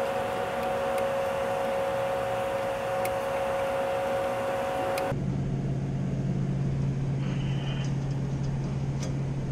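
Steady machinery hum with a few faint metallic clicks as a bullet piercing valve is handled and tightened on a refrigerant line. About five seconds in, the hum abruptly changes to a lower one.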